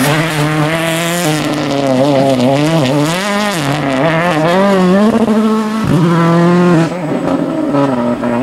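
Volkswagen Polo R WRC rally car's 1.6-litre turbocharged four-cylinder engine revving hard, its note wavering up and down in pitch, with a short break about six seconds in and a steadier note after it.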